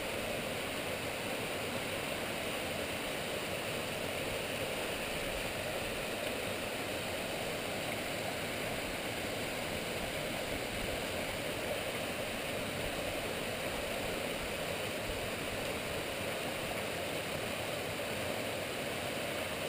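Small waterfall sliding down a rock face into a pool: a steady, unbroken rush of falling water.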